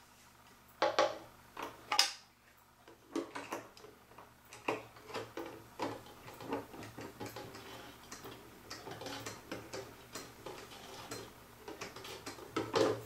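Small clicks, taps and light scrapes of a clock dial being worked into place against the movement of a vintage kitchen clock in its wooden case, with a few louder knocks about a second and two seconds in.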